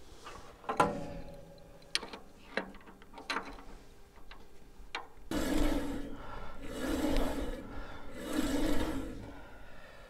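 Metal clicks and knocks from hands working on a band sawmill's blade housing, one of them ringing briefly, then three long rasping rubs about a second and a half apart.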